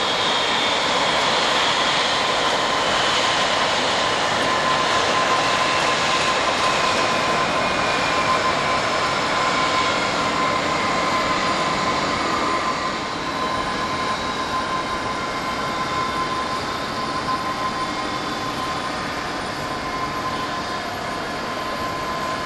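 Boeing 787 jet engines running at low power: a steady rush with a high whine that slowly falls in pitch over the first ten seconds, and a steady high tone beneath it.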